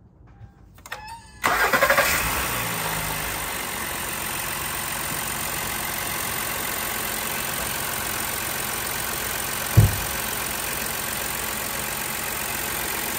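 2017 Honda Pilot's 3.5-litre V6 cranking and catching about a second and a half in, flaring up briefly, then settling to a steady idle with its new serpentine belt on. A single short thump about ten seconds in.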